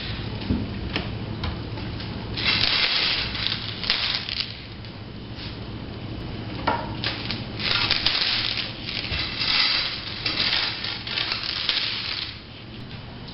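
Bead garland rattling and scraping across a hardwood floor as kittens bat and pull at it, in irregular bursts with scattered clicks. A steady low hum runs underneath.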